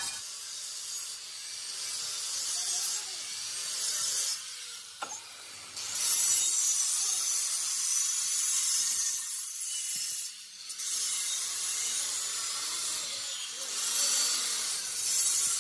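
Angle grinder grinding the edge of a steel tractor wheel rim as it spins on a lathe: a steady, harsh, high-pitched rasp that briefly drops away twice.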